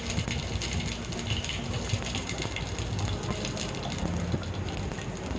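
Cumin seeds and whole spices sizzling in hot cooking oil for a tadka, a steady crackle of fine pops.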